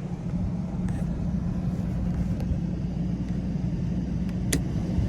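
RV rooftop air conditioner running on high cool with a steady hum. There is one short click about four and a half seconds in.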